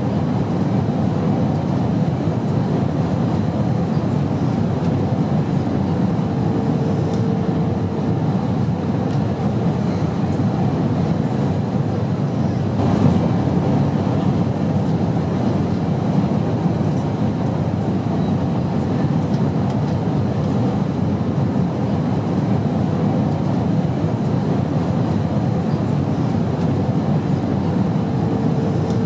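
Steady airplane drone: a low, even rumble of engines and rushing air with no breaks, a faint hum coming in briefly twice.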